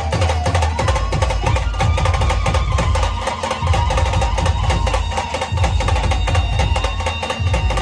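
Dhol-tasha drumming: fast, dense tasha strokes over deep dhol beats, with a wavering tone that slowly slides up and down above the drums.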